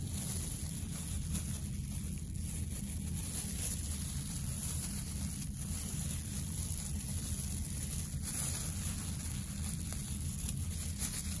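Steady low background hum with a faint high hiss, broken by a few faint clicks.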